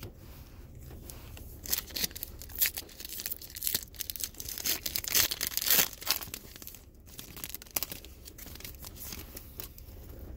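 A trading card pack's wrapper being torn open and crinkled by hand: irregular bursts of tearing and rustling, busiest about five to six seconds in.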